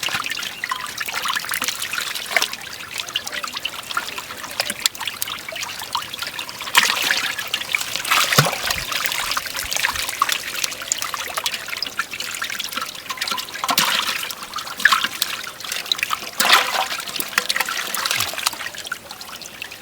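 Water splashing and trickling, with many small irregular splashes and drips and a few louder splashes.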